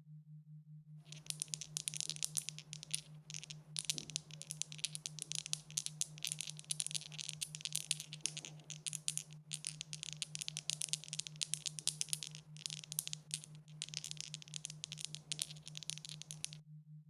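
Dice rattling: a dense, continuous run of sharp clicks that starts about a second in and stops shortly before the end, over a faint steady low hum.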